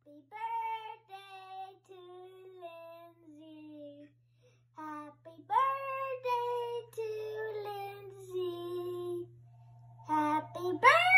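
A young boy singing a slow tune in held notes, with a woman's voice singing along in places, over a steady low hum.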